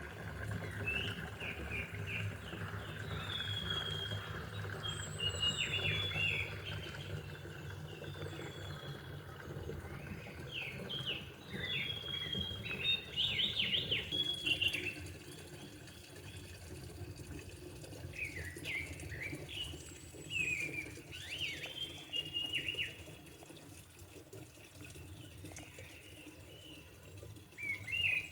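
A songbird singing in bouts of quick, varied chirping phrases, pausing between them, over a steady low background rumble.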